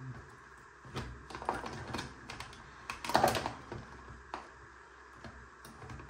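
Small plastic clicks and rattles of wire-harness connectors being handled and pushed together on a washing machine's control board, irregular, with the loudest cluster of clicks about three seconds in.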